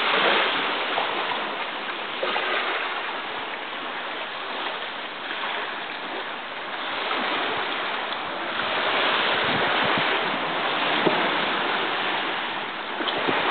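Small sea waves lapping and washing against a rocky shore, a steady wash that slowly swells and eases in loudness.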